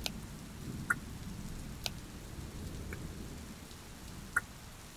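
Steady rain, with a low rumble of thunder swelling in the first half and about five scattered sharp ticks, as of drops.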